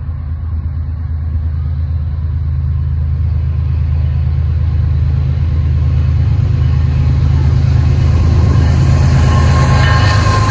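Diesel freight locomotives approaching, their engine rumble growing steadily louder. Near the end this is joined by rising wheel-on-rail noise.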